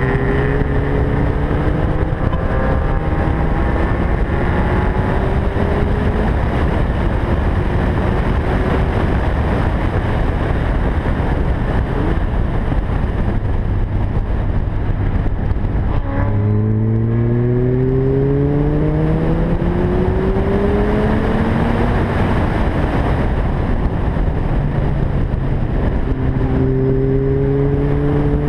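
2011 Lotus Elise's four-cylinder engine under hard acceleration on a race track, its note climbing through the revs, easing off, then climbing strongly again about halfway through and once more near the end. Constant wind and tyre noise runs underneath.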